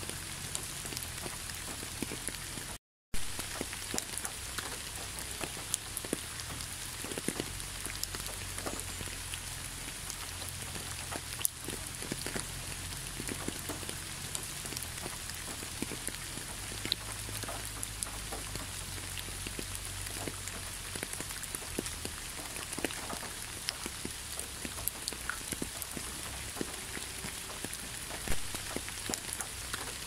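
Steady rain falling, a continuous wash of noise with many separate drops ticking through it. The sound cuts out for a split second about three seconds in, then carries on unchanged.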